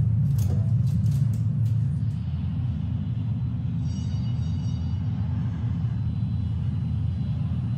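New subway car running, heard from inside the car as a steady heavy low rumble. A few sharp clicks come in the first two seconds, and a faint high whine of several tones comes in about four seconds in.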